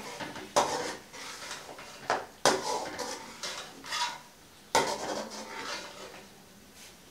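A metal spoon scraping and clinking against a metal cooking pot as a thick meat curry is stirred and fried, in several separate strokes, the last about five seconds in.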